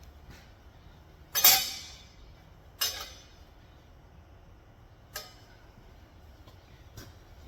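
Sharp metallic clanks of steel flatbed pieces being handled and set down, four in all at irregular spacing. The loudest comes about one and a half seconds in and rings briefly; the last is faint.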